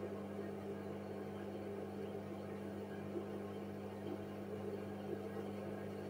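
Hoover front-loading washing machine running with its drum turning: a steady, even hum.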